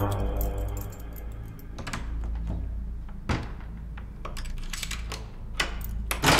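A key being worked into a door lock and turned: a scatter of sharp metallic clicks and a thunk, over a steady low drone.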